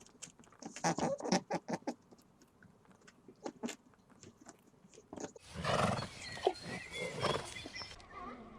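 A run of short sharp clicks or knocks, then about five seconds in a loud, noisy call from a large animal lasting a couple of seconds.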